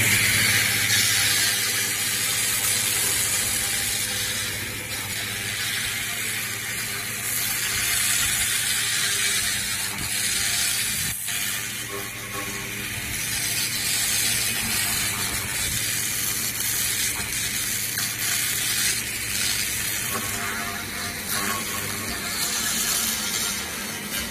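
A handheld laser cleaning head ablates grime off a metal fan impeller, making a dense, fast crackling hiss where the pulsed beam hits the metal. Under it runs a steady low hum, and the crackle breaks off briefly about eleven seconds in.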